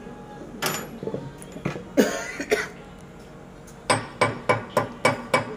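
Sharp knocks and taps from engine parts being handled, ending in a quick run of about six taps, roughly three a second, starting about four seconds in.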